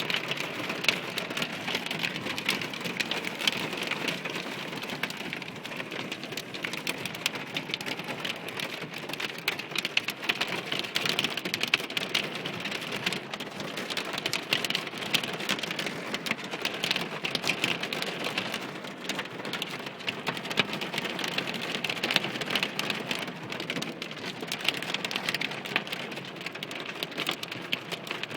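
Hailstorm: hailstones and heavy rain striking hard surfaces, a steady dense patter of many sharp clicks.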